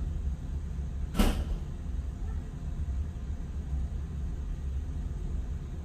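A single sharp knock about a second in, over a steady low rumble.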